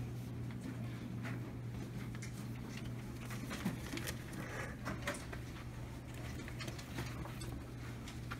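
Children taking plastic cups and paper notes out of a hanging pocket chart: light scattered clicks and rustles over a steady low hum.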